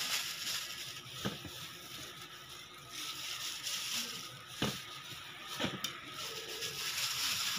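Raw chicken pieces being massaged with minced garlic by a hand in a plastic glove, in a plastic basin: soft wet squishing over a steady hiss, with three short knocks.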